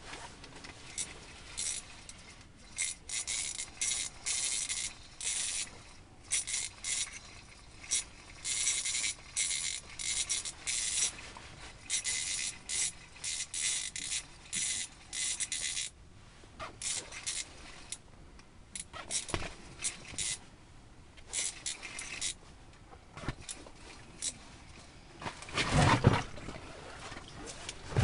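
Repeated short scraping, rasping bursts, often about two a second, as a hooked fish is reeled up through the ice hole on an ice-fishing rod. Near the end comes one loud splash and thump as the fish is pulled out of the water.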